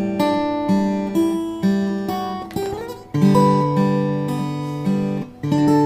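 Acoustic guitar fingerpicking an arpeggiated A minor 7 chord, moving to a new chord about three seconds in, with notes ringing over each other.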